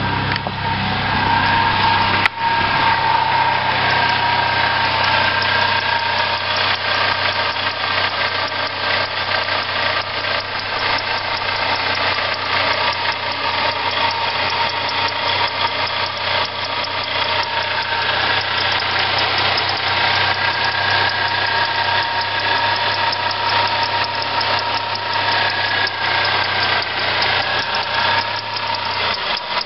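Car engine idling with a steady high whine and a fast rattle from its accessory drive, which the owner takes for a failing water pump bearing. A single sharp click about two seconds in.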